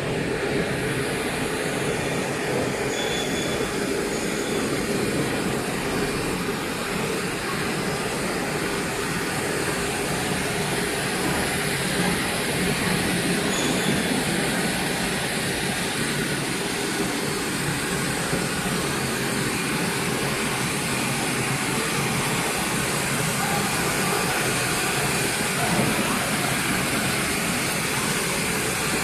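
EVA vacuum-cleaner hose extrusion line running, a steady, even machine noise that does not change.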